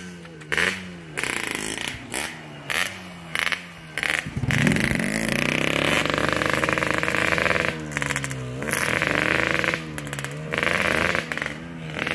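Yamaha RX-King two-stroke motorcycle engine revved in about half a dozen short throttle blips, then launching about four seconds in and accelerating hard. Its pitch climbs and drops several times as it shifts up through the gears.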